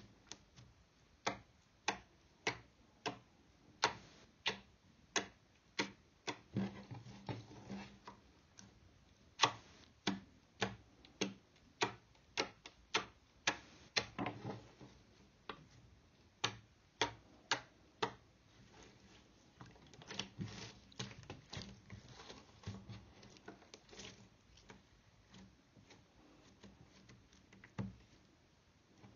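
Green slime being poked and pressed with fingers, giving a string of sharp pops and clicks, about one to two a second, with softer squishing in between. The pops thin out in a quieter stretch near the end.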